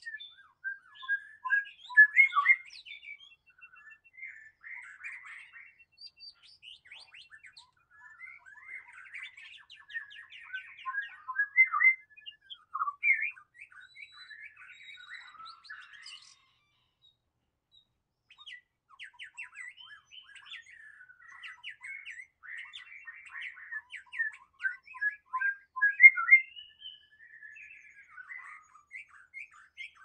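White-rumped shama singing a long, varied song of quick notes and short whistles, phrase after phrase. It pauses for about two seconds just past the middle, then carries on.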